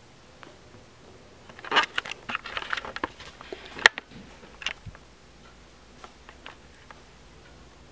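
Handling noise from a camera being moved around: rustling with a run of clicks and knocks for a few seconds, the sharpest a single click about four seconds in.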